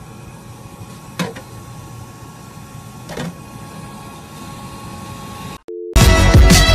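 Drink-dispensing machine running with a quiet, steady hum, broken twice by a short, sharp sound about two seconds apart. Near the end there is a brief beep, then loud electronic music cuts in.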